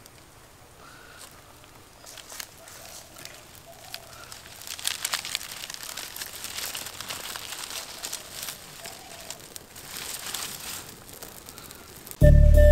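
Bundle of dried palm leaves rustling and crackling as it catches fire and burns on an open hearth, the crackling getting denser a few seconds in. Music comes in abruptly just before the end.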